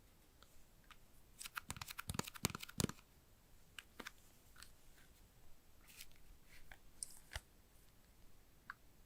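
Faint handling noise of packaging and small objects: a quick run of crackling clicks lasting about a second and a half, then scattered single clicks and taps.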